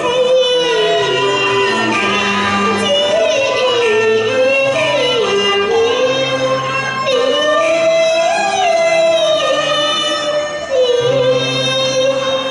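A woman singing Cantonese opera in one long, gliding, ornamented line with wavering pitch, accompanied by a Chinese instrumental ensemble. The voice breaks off briefly about ten seconds in, then holds a note.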